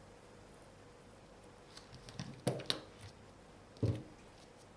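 Faint handling of a wire stripper and battery lead: a few soft clicks and scrapes about two seconds in, then a short knock near the end, as the wire's insulation is stripped.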